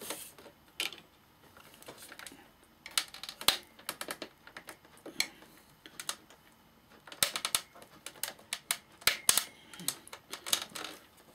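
Sharp clicks and taps of hands working on the clips and parts of a Sansui AU-X111 amplifier being taken apart, coming in small clusters a few seconds apart.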